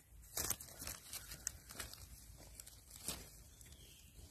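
Dry leaf litter crackling and rustling as a knife and hand dig mushrooms out of the forest floor, in a few short scrapes, the loudest about half a second in.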